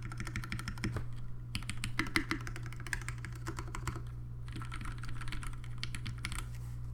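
Typing on a Singa R1 WKL mechanical keyboard with retooled Cherry MX Black linear switches, lubed with Krytox 205/105, on a brass plate: quick runs of key presses with two short pauses, stopping shortly before the end. A steady low hum runs underneath.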